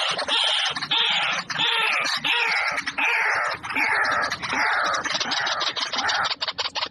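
Several birds calling loudly and harshly over one another, in a run of falling calls repeating about every two-thirds of a second; near the end the calls break up into quick clicks.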